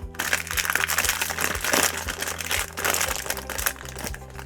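Crinkling and crumpling of blind-box packaging handled by hand, dense crackling for about three and a half seconds, then quieter near the end.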